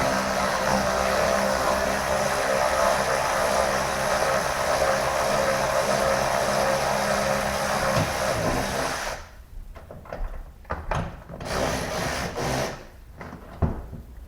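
Power drill running steadily under load for about nine seconds, then stopping abruptly, followed by a few short clicks and knocks.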